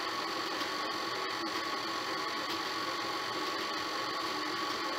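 Electric motor of a KitchenAid Heavy Duty bowl-lift stand mixer running at a steady speed, its flat beater beating creamed butter and sugar with the egg and peppermint extract until light and fluffy.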